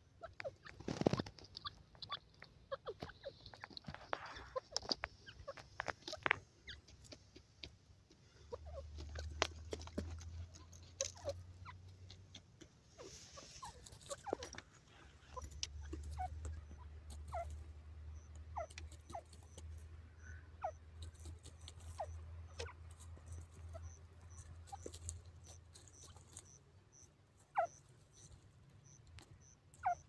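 Grey francolin foraging on dry soil: scattered short clicks of its bill pecking and scratching the ground, with a few brief soft chirps.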